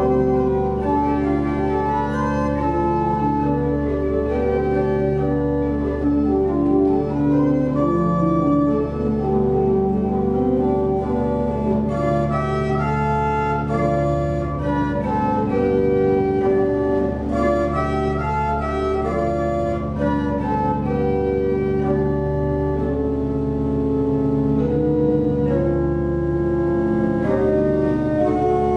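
Church pipe organ playing a hymn in sustained, overlapping chords over a steady low pedal bass.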